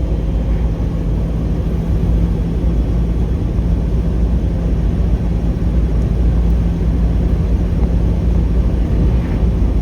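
Steady road and engine noise inside a moving car's cabin: a low rumble with a steady low hum.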